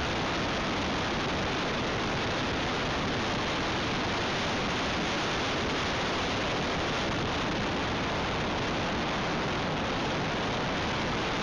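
Steady rushing hiss of wind buffeting an RC model aircraft's onboard camcorder microphone in flight, with no distinct motor tone showing through.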